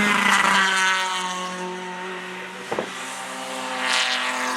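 Race car engines at a circuit. A car passes at speed and fades away in the first second, its engine note dropping. A single sharp pop comes near the middle, and another car swells past near the end.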